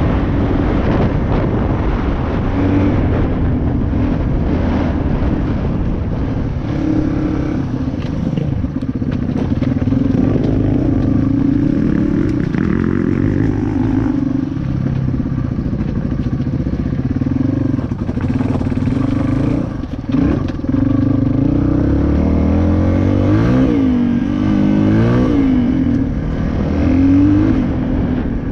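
Dirt bike engine running steadily under varying throttle on a trail ride, its pitch shifting up and down as it is revved, with several quick rising and falling rev sweeps near the end.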